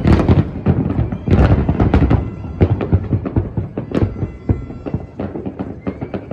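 Fireworks display: a rapid run of bangs and crackling pops from bursting aerial shells, dense at first and thinning to softer, scattered pops from about four seconds in.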